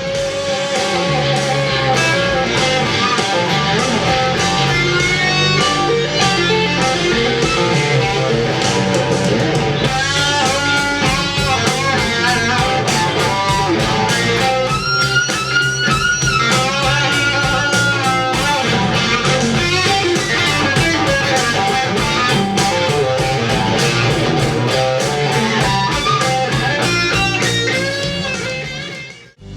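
Home-built Strat-style electric guitar with Bare Knuckle Irish Tour pickups played over a rock backing track with bass and drums, in lead lines with bent and wavering notes. The music fades in at the start and fades out near the end.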